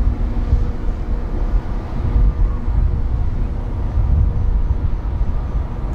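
Wind buffeting the microphone over a steady low hum of a car ferry's machinery.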